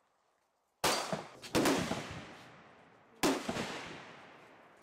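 Several handgun shots, the first about a second in and the last about three seconds in, each sharp crack trailing off in a long echo.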